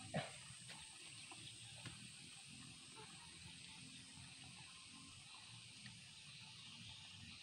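Faint scraping and crumbling of loose garden soil as bare hands dig around a plant's root ball, with one sharp knock a fraction of a second in and a few softer ticks later, over a steady faint hiss.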